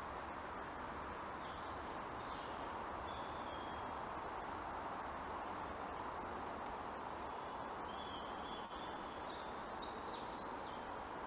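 Woodland birds singing, a scatter of short high chirps and whistles, over a steady faint background hiss.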